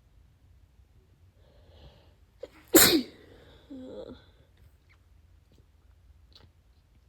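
A person's single wet sneeze about three seconds in: a short breathy build-up, then one sudden loud burst, followed by a brief pitched vocal sound.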